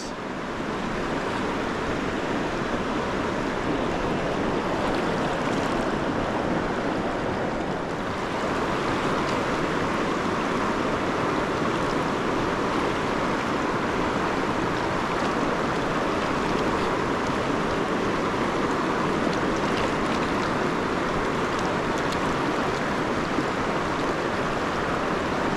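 Fast river current rushing steadily over rocks and riffles: a continuous wash of water noise.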